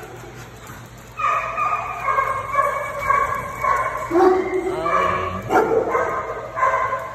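Dogs vocalizing in play: drawn-out, high, wavering whines mixed with yips, starting about a second in and going on in several stretches.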